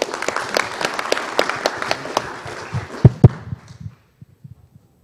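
Audience applauding, a dense patter of claps that dies away about four seconds in. Two low thumps sound just after three seconds.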